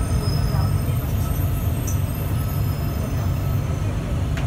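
Cabin noise of a rubber-tyred Bombardier Innovia APM 100 light-rail car rolling slowly along the station platform and coming to a stop: a steady low rumble with a faint steady whine above it.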